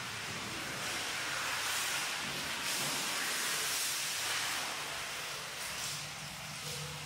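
Steady hissing background noise that swells and eases a little, with a faint low hum underneath.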